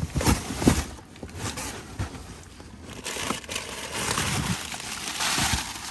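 Plastic trash bags and food packaging rustling and crinkling as rubbish is sorted through by hand in a dumpster, with a few sharp knocks near the start.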